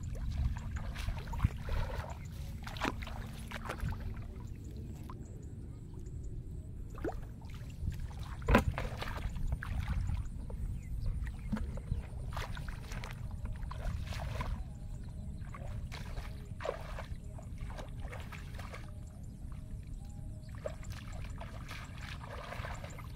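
Splashing and rustling as a person wades through a flooded rice field, with scattered sharp splashes and knocks over a steady low rumble. The loudest knocks come about a second and a half in and about eight and a half seconds in.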